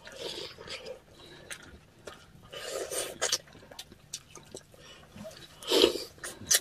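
Close-miked eating sounds from a bowl of salmon-head sinigang: three short, breathy slurps, one at the start, one about three seconds in and one near the end, with small mouth and utensil clicks between them.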